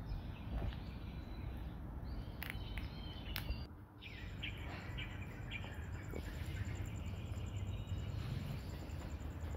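Outdoor background ambience with short bird chirps, and a steady, rapidly pulsing high insect trill that starts about four seconds in.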